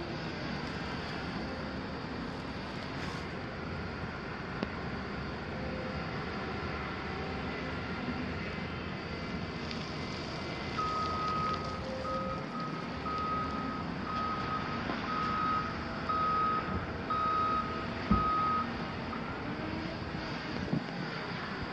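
Diesel engines of a Cat wheel loader and a Volvo excavator running steadily. About eleven seconds in, the wheel loader's reversing alarm beeps about eight times, roughly once a second, as it backs up. A single sharp knock follows near the end of the beeping.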